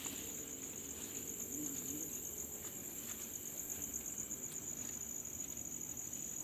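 Night insects such as crickets chirring in a continuous, high-pitched, finely pulsing trill.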